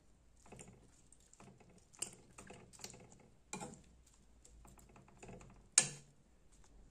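A round steel ladle clinking and scraping against a non-stick wok while stirring vegetables. It makes a string of irregular light clicks, with one sharp knock near the end.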